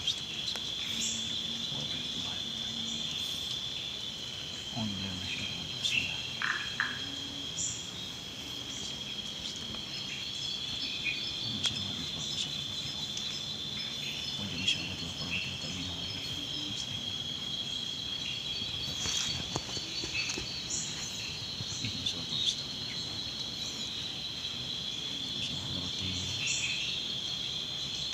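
Night chorus of crickets and other insects: a steady, shrill, finely pulsing trill that goes on without a break, with a few soft clicks and a faint low murmur beneath.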